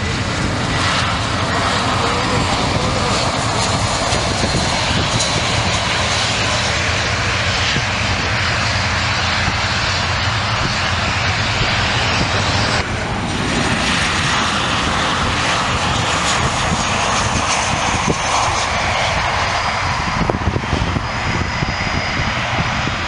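Jet airliner engines running loud and steady as airliners come in to land: first a twin-jet Airbus A320 passing low on final approach, then, after a cut about 13 seconds in, a Boeing 737 touching down and rolling out.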